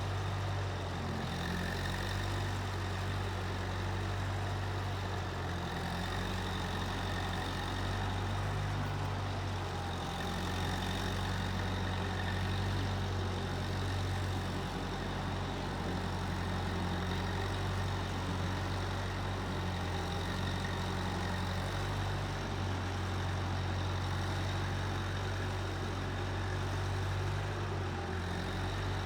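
Case 1530 Uni-Loader skid steer's engine running steadily, with only small shifts in its tone.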